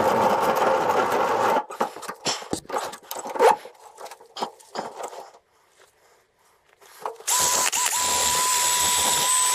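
Cordless drill with a wire wheel running on welded steel in two spells: a rough, dense run for about the first second and a half, then a steady whine that starts again about three seconds before the end. Between the runs, knocks and clatter of metal parts being handled in a vise.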